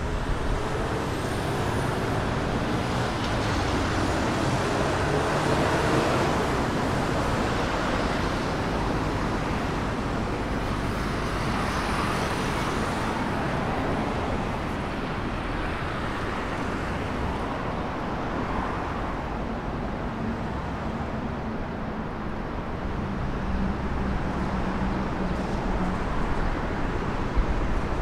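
Road traffic on a wide city street: a steady hum of tyres and engines as cars and heavier vehicles pass. One engine tone slides down near the start, and a low engine note holds for several seconds past the middle.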